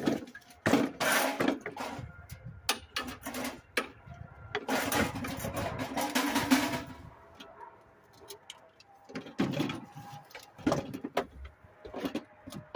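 Irregular bursts of tool-on-metal working noise with sharp knocks, from a lawn mower being dismantled. The longest, loudest stretches come about a second in and again from about five to seven seconds, with a quieter lull near eight seconds.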